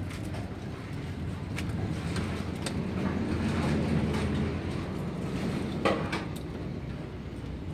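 Napa cabbage leaves snapped and torn apart by hand, giving a few crisp cracks, the loudest about six seconds in. Under them runs a low rumble that swells around the middle and fades again.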